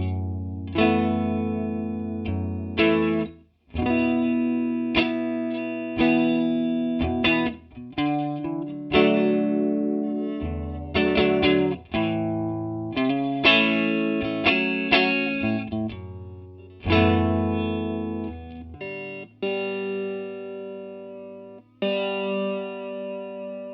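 Electric guitar chords played through a TC Electronic Corona Mini chorus pedal, struck every second or two with a shimmering chorus wobble. A last chord near the end is left to ring out, wavering.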